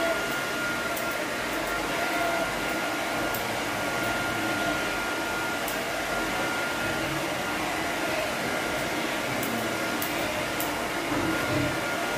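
A motor running steadily with a thin constant whine, and a few faint snips of grooming scissors cutting fur.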